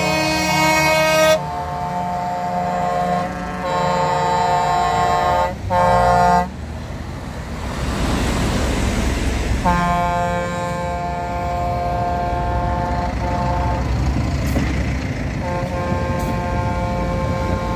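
Vehicle horns from a passing convoy of trucks and tractors sounding in long held blasts, several tones at once, breaking off and starting again. A few seconds in, the horns stop while a heavy dump truck drives close past with a rumble of engine and tyres. The horns resume after it.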